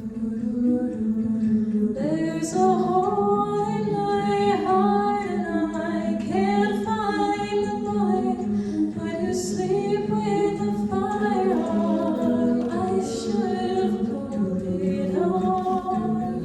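An a cappella vocal ensemble singing in close harmony: sustained chords over a steady low sung drone. The voices swell into a fuller texture about two seconds in.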